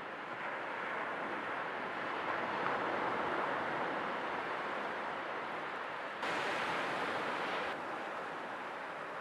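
Sea waves washing in as a steady surf hiss, swelling about two to three seconds in. About six seconds in a brighter, louder stretch of surf starts abruptly and cuts off just as suddenly a second and a half later.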